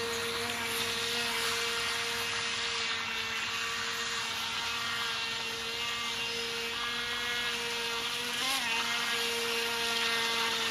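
Udirc Venom UDI002 RC jet boat's electric motor whining steadily at full run across the water, with a brief wobble in pitch about eight and a half seconds in.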